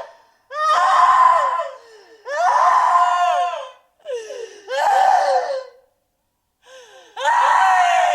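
A series of separate human screams played one after another, each about a second long, high-pitched and loud, with brief dead-silent gaps between them.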